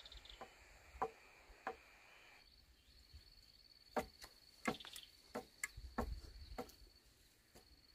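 Steady high-pitched insect chirring, like a cricket, with about a dozen irregular sharp knocks scattered through it, most of them in the second half.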